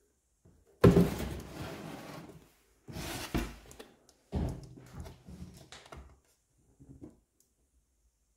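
Plastic toy pirate ship being handled: a sharp knock about a second in with rattling after it, then two more knocks with clatter, and a faint tap near the end.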